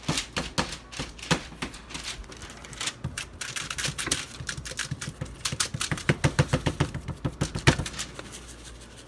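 A seasoning shaker of dry rub being shaken and tapped over raw sausage, making a run of sharp clicks and taps. The taps come faster and louder for a couple of seconds near the end.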